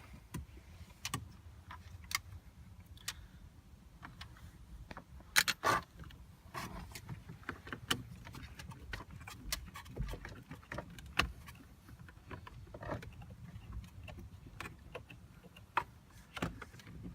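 Scattered light clicks and taps of a Torx screwdriver and plastic dashboard trim being worked on, with two louder knocks about five and a half seconds in.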